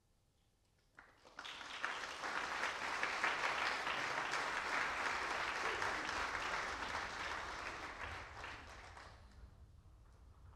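Audience applauding, starting about a second in after a near-quiet pause, swelling, then dying away near the end.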